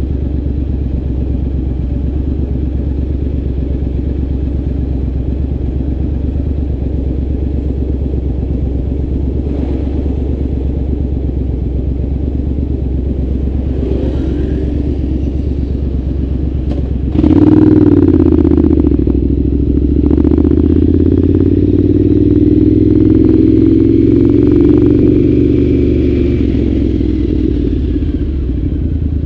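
Triumph Scrambler 900's parallel-twin engine through a Zard aftermarket exhaust, idling steadily at a stop. About 17 seconds in it suddenly gets louder as the bike pulls away, the revs climbing, dipping at a gear change, climbing again and then easing off.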